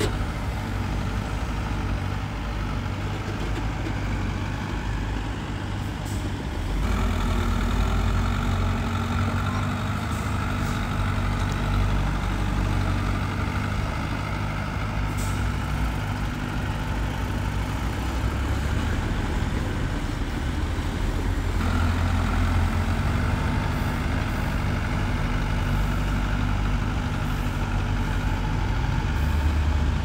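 Heavy diesel engine of earthmoving machinery running steadily. It grows louder, as under load, about seven seconds in and changes note again around twenty-two seconds.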